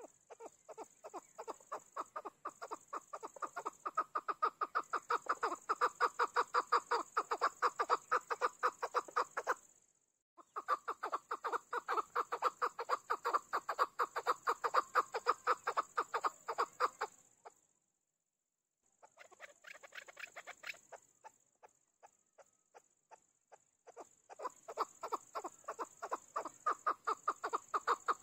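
Chukar partridge calling: long runs of rapid, repeated 'chuck' notes, about six a second, that swell from soft to loud. The bird gives several bouts, with short breaks about 10 and 18 seconds in and a softer run in between before it calls loudly again.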